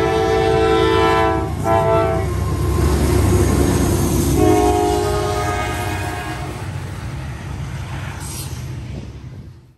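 Norfolk Southern diesel freight locomotives passing close by and sounding their air horn: a long blast that breaks off about two seconds in, then a second blast from about four and a half seconds in lasting a couple of seconds. Under it the locomotive engines and the wheels of the double-stack container cars rumble past, slowly fading.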